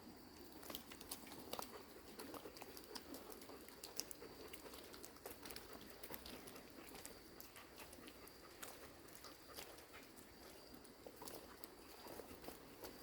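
Near silence: faint outdoor ambience with scattered small clicks and rustles and a thin, steady high tone.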